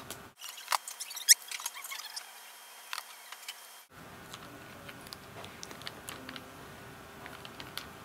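Small plastic clicks and taps as a Lego-built Rubik's cube and its loose tiles are handled, with one sharp click about a second in.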